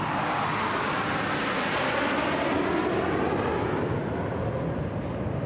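Jet aircraft of the Bhim formation, a C-17 transport with two Su-30 MKI fighters, flying past overhead: a steady jet roar whose pitch slides lower partway through as the aircraft pass.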